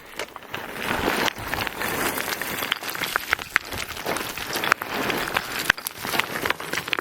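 Rockfall: loose rocks tumbling and clattering down a slope, a dense run of sharp knocks and clicks over a rattling rush that grows louder about a second in.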